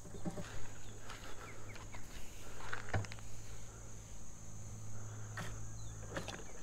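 Steady high-pitched insect chirring over a low steady hum, with a few faint knocks from the rope and bucket being handled.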